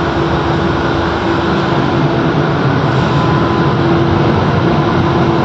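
Newark AirTrain monorail car running between stations, heard inside the cabin: a steady rumble and hiss of the moving car with a faint steady hum.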